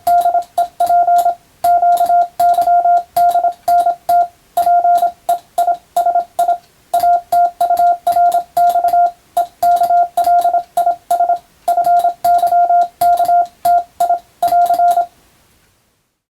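Morse code (CW) tone, a steady pitch near 700 Hz, keyed on and off in dots and dashes, with a sharp click at each keying. The sending stops near the end.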